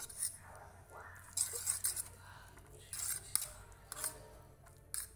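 Metal fork scraping and clinking against a ceramic plate in several short bouts as fried instant noodles are tossed with their seasoning and sauce.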